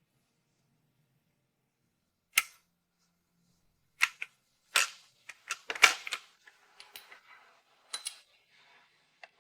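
Tools and metal parts being handled during motorcycle work, making sharp clicks and clinks: a single click about two seconds in, then a quick run of clanks and clicks, thinning out towards the end.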